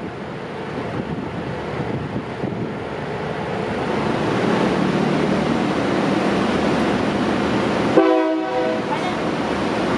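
Diesel railcar set pulling out of the station, its engine and wheel noise growing louder over several seconds. A short horn blast comes about eight seconds in.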